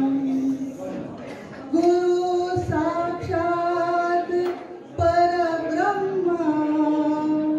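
A woman's solo voice singing slow, long held notes in phrases, with short pauses between them and a brief upward slide and fall in pitch near the end.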